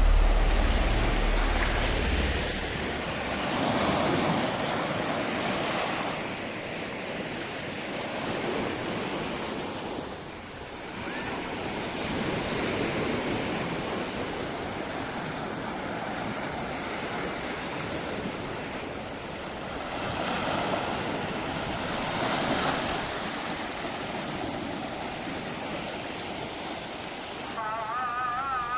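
Sea surf washing onto a beach, the wash of the waves swelling and easing every few seconds.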